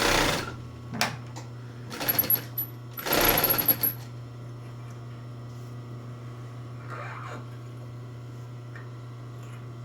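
Reliable DB-189 industrial sewing machine's motor humming steadily. There are several short runs of the machine in the first four seconds, a click, and two louder bursts with a thin high whine, as the bobbin winder is being set going.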